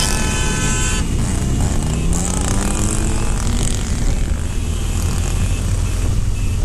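BMW motorcycle engine running under the rider, with a rising pitch between about one and a half and three seconds in as it pulls away, over a steady rush of wind and road noise. A multi-tone horn blares at the start and cuts off about a second in.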